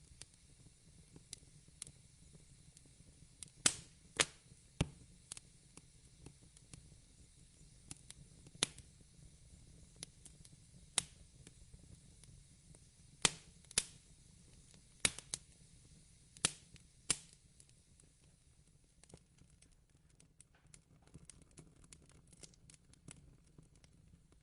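Wood fire in a fireplace crackling: sharp, scattered pops a second or two apart, some much louder than others, over a low steady background, with a run of faster, fainter crackles near the end.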